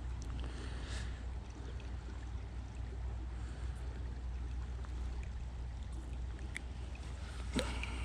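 Creek water running steadily, with a few faint clicks and small handling noises over it.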